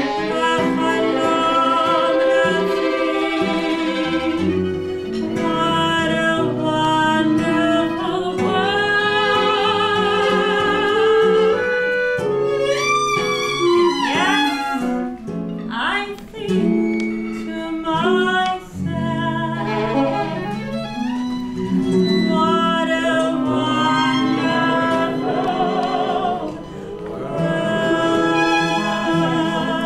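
A female cantor singing with vibrato, accompanied by a violin, with sweeping vocal glides around the middle.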